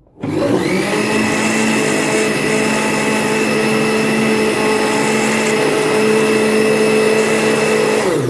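Electric blender switched on and running steadily for about eight seconds, blending milk, yogurt, sugar and lemon zest, then switched off and spinning down.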